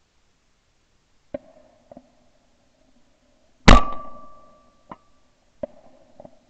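A single shotgun shot from a Beretta 692 over-and-under, heard through a barrel-mounted ShotKam camera, about three and a half seconds in, with a short ringing tail. A few faint clicks come before and after it.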